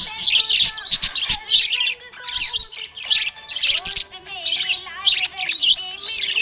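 Budgerigars chirping and warbling in a fast, dense chatter of short chirps, with a few longer, lower whistled notes past the middle.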